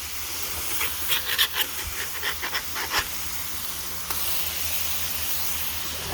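Smash burger patties sizzling steadily on a Lodge cast iron griddle, with a quick run of short scrapes and taps from the spatula about one to three seconds in.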